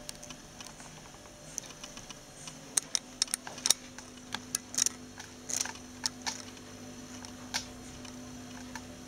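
Handling noise from a handheld camera being moved: irregular sharp clicks and taps, densest in the middle, over a faint steady low hum that starts about three seconds in.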